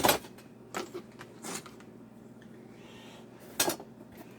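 Small hard parts of a diesel heater kit clattering and knocking as they are packed back into their box: a handful of separate clatters, the loudest at the start and about three and a half seconds in.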